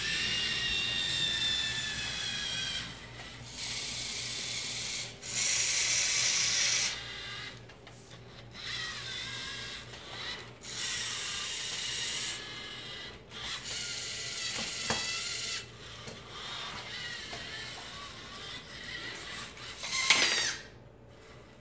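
LEGO Mindstorms EV3 robot's motors and gear trains whirring in a series of separate runs of a few seconds each, some rising or falling in pitch as the robot drives and works its attachments. A sharp click comes about two-thirds of the way through, and a short, louder whine rises near the end.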